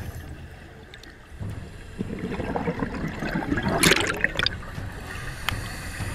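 Scuba diver's exhaled bubbles gurgling from a regulator underwater, building into a louder rush of bubbles about four seconds in, with a single short click near the end.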